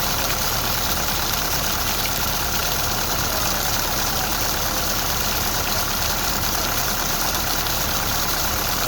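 Steady rain falling, a continuous even hiss with no change in strength.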